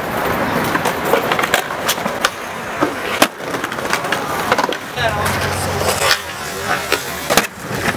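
Skateboard wheels rolling on concrete, with repeated sharp clacks of boards popping and landing.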